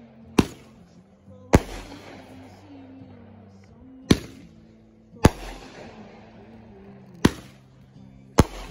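Aerial firework shells bursting: six sharp bangs, a second or two apart, each trailing off in a fading rumble.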